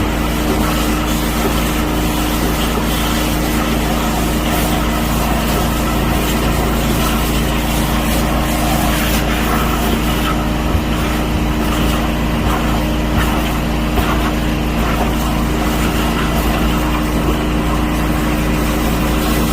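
A machine running steadily, a constant drone with a low hum that never changes pitch or level.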